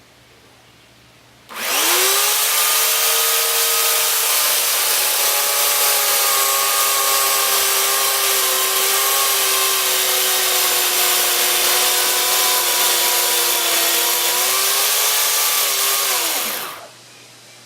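Electric chainsaw spinning up about a second and a half in and cutting the felling notch into a dead tree trunk, its whine sagging a little under load and rising again as it eases off, then winding down and stopping near the end.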